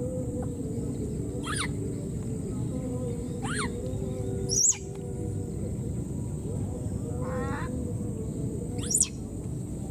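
Animal calls: short, high-pitched rising calls repeating every one to two seconds, two of them loud, shrill squeals about halfway through and near the end, over a steady background noise.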